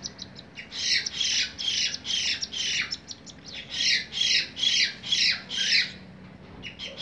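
Cockatiel nestlings begging to be fed by a parent: a rapid series of short, harsh, falling calls, about three a second. The calls come in two runs, with a brief break near the middle and a lull near the end.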